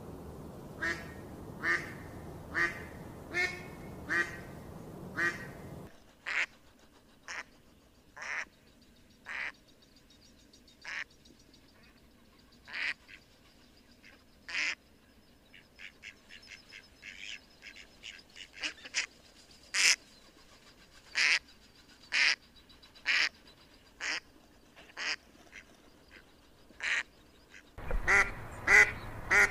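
Ducks quacking: a string of short single quacks, about one a second, with a denser patch of fainter calls midway and a quicker, louder run near the end.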